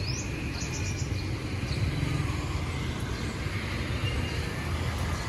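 Steady low rumble of outdoor ambience, like traffic or a running vehicle, with a few short high chirps near the start.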